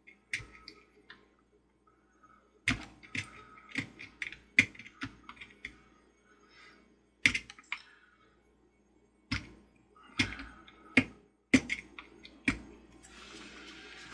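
Razor knife blade scraping and chipping hard glue off a porcelain piece: irregular sharp clicks and short scratchy strokes, a dozen or more, with brief pauses between them.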